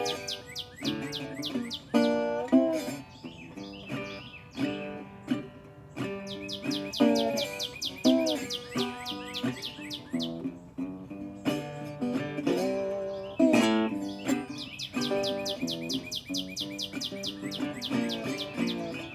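Acoustic guitar being picked and strummed while a songbird sings along in rapid trills of repeated high chirps, coming in three bursts: at the start, in the middle and near the end.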